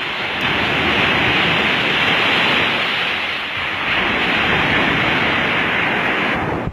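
Rough, storm-driven sea surging and breaking against a stone seawall: a loud, steady rush of surf that swells about half a second in and again about four seconds in, then cuts off abruptly near the end.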